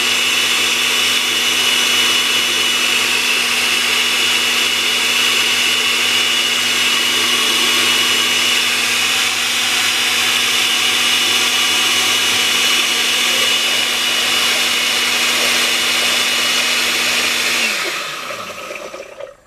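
Countertop blender with a glass jar running steadily, churning a liquid cilantro, oil and lemon mixture into a paste, its motor giving a steady hum with a thin high whine. Near the end the motor winds down, its pitch falling, and stops.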